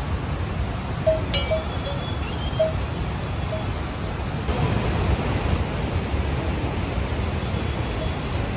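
Steady rain falling, an even hiss, with short pitched plinks now and then and a sharp click a little over a second in.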